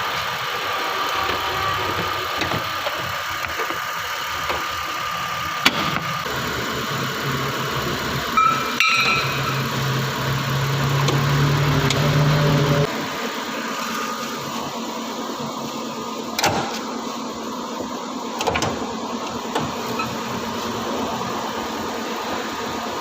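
Engine running steadily, with a few sharp clicks and knocks. A strong low hum comes in about ten seconds in and cuts off suddenly near thirteen seconds.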